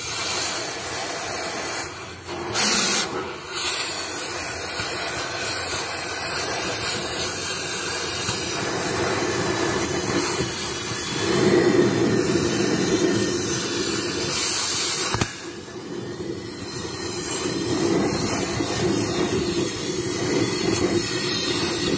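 Gas cutting torch flame running steadily as it cuts a slot through the steel housing of a Maxi spring brake chamber, to let the loaded spring out before scrapping. A brief louder burst comes about three seconds in.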